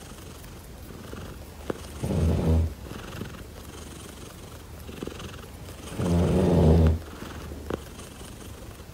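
Grey tabby cat purring while being scratched under the chin. The purr swells loud twice with its breathing, about two and six seconds in, and runs quieter in between. Two faint clicks are heard as well.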